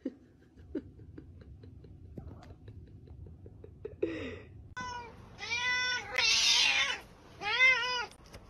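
A kitten mewing: four or five high-pitched cries in quick succession starting about halfway through, one of them rougher and noisier than the rest.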